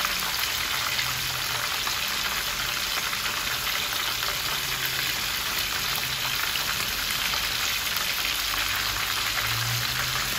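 Croaker fish pieces deep-frying in hot oil in a pan: a steady sizzle with fine crackling.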